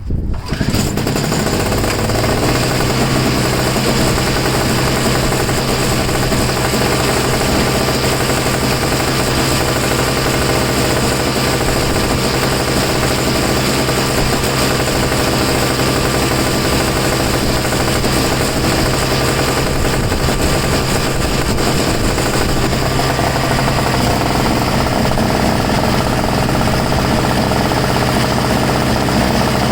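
Two-stroke snow blower engine catching and then running steadily on full choke with a fast, even rattle. It runs now that it has fuel; low gas was why it would not start before.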